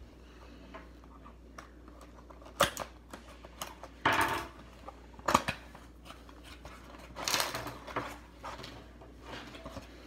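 A cardboard box being handled and opened by hand: scattered taps and scrapes, with a longer rustle about four seconds in and another around seven seconds.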